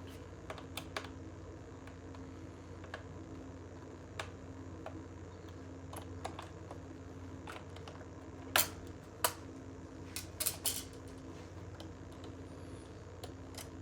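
Scattered small clicks and taps of a screwdriver and the plastic back covers of a laptop being worked off, with a louder cluster of clicks about nine to eleven seconds in, over a faint steady hum.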